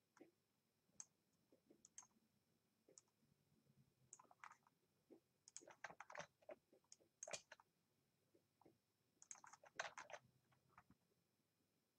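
Faint, irregular clicking of a computer mouse and keyboard, coming in small clusters.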